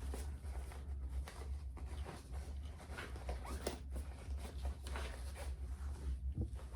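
Small toiletry items being handled and set in place: light rustling and scattered soft taps and clicks, over a steady low hum.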